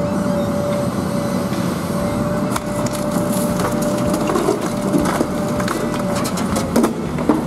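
High-reach demolition excavator's hydraulic crusher jaws biting into the top of a masonry wall: cracking and crunching of breaking concrete and falling rubble from about two and a half seconds in. Underneath runs the machine's steady engine hum with a steady whine that stops about six seconds in.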